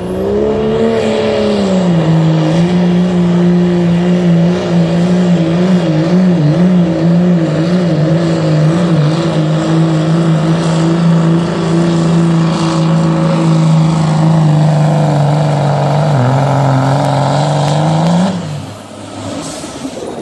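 Diesel pickup truck engine held at high revs under full load while pulling a weight-transfer sled on a truck-pull track. Its pitch wavers for a few seconds mid-pull and dips about 16 s in. It rises briefly near 18 s, then drops off sharply as the driver lets off at the end of the pull.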